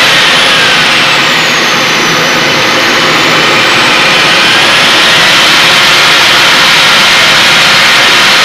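Simjet 3000 model jet turbine running loud. Its high whine drops in pitch as it is throttled down from about 122,000 rpm, bottoms out about two seconds in, then rises again as it spools back up to about 125,000 rpm.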